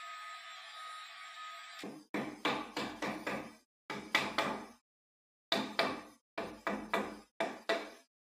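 A steady hiss with a faint whistle-like tone stops suddenly about two seconds in. Then a hammer strikes the side wall of a wooden epoxy-casting mould, about fifteen sharp knocks in quick groups of two to five, knocking the mould wall loose from the cured resin slab.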